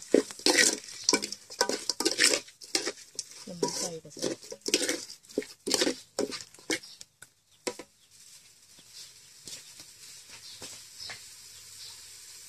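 A spatula stirring and scraping chicken around an aluminium pot, quick repeated scrapes and clacks about two a second, as the chicken is fried in its curry paste. About eight seconds in the stirring stops and only a faint sizzle from the pot is left.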